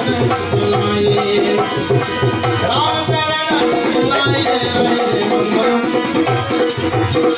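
Instrumental break in a Hindi devotional song: a Paul & Co harmonium playing the melody in steady reedy chords over a fast, even percussion beat.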